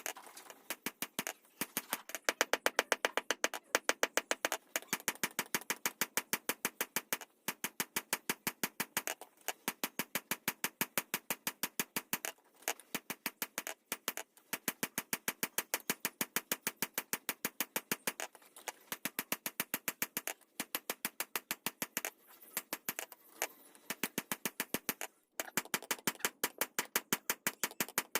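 Rapid light hammer taps on the khukuri, about seven a second, in runs of a second or two with short pauses between them.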